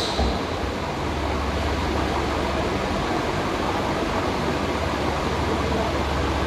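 Steady rushing room noise with a constant low hum underneath, the background air noise of a large gym hall.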